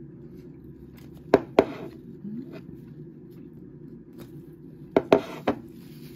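A ceramic plate knocking on a desk as it is handled and set down: two sharp knocks a little over a second in and three more near the end. A steady low hum lies under them.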